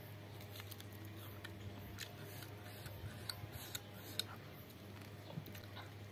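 Faint close-up chewing of a mouthful of rice and stew, with many small soft mouth clicks scattered through, over a low steady hum.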